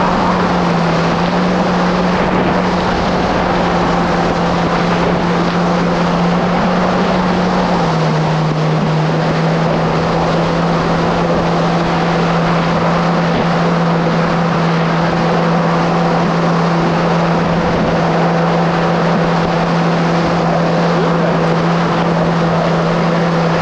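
Kawasaki SX-R 1500 stand-up jet ski's four-cylinder four-stroke engine running hard under way, a steady high drone whose pitch drops a little about eight seconds in. Wind on the microphone and water rushing off the hull are mixed in.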